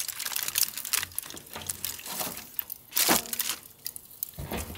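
Aluminium foil crinkling as a foil-wrapped parcel is handled and set down on a charcoal grill's grate: irregular crackles, one louder about three seconds in.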